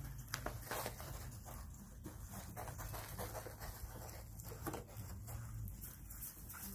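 Six-week-old standard poodle puppies tussling and scrambling over each other on raised dog cots, with scattered scuffles and clicks and a couple of brief, faint puppy whines.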